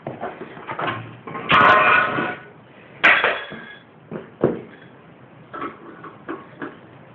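Metal clanks and knocks from wrenching on a lawn mower. The loudest, about one and a half seconds in, rings on briefly, and a second sharp clank comes about three seconds in, followed by several lighter knocks.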